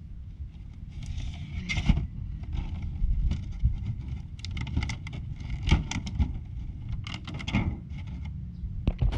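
Clear plastic blister tray and bag crinkling and crackling in several irregular bursts as a packaged action figure is handled. A steady low rumble runs underneath.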